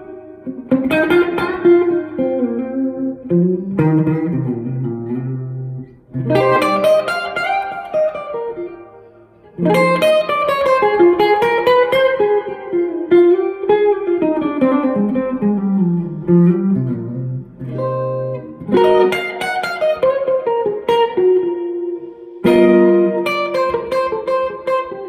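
PRS Custom 24 Wood Library electric guitar played through an amplifier: melodic lead phrases of single notes and chords, with short breaks between phrases.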